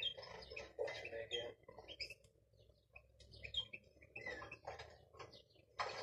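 Young greenfinch × canary mule finches chirping: many short, high notes and warbled phrases in quick, uneven bursts, with a brief lull midway.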